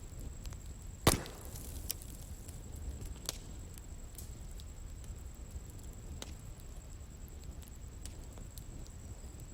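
Bonfire burning, with one loud sharp pop of burning wood about a second in, then scattered smaller pops and crackles over a low steady rumble of the flames.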